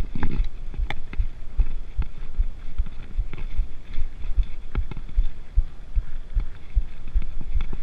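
Mountain bike rolling down a rough dirt singletrack: irregular low thuds several times a second as the tires hit bumps and the frame and parts jolt, with sharp rattling clicks now and then.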